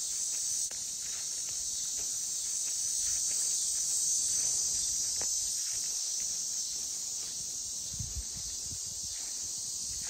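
Steady, high-pitched chorus of insects calling, a constant shrill hum.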